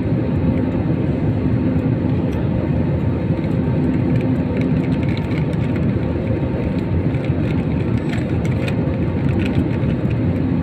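Steady cabin noise of a jet airliner on approach to landing, heard from a window seat over the wing: an even low rumble of engines and airflow. A faint steady hum runs through the first half.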